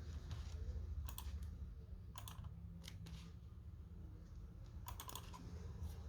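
Faint computer keyboard keys clicking in a few short clusters over a low steady hum.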